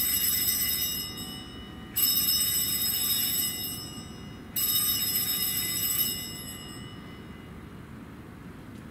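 Altar bells (Sanctus bells) rung three times about two and a half seconds apart at the elevation of the chalice: each ring is a bright jangle of several high tones that rings on and fades. The first is already sounding as the clip starts, and the last dies away about seven seconds in, leaving room tone.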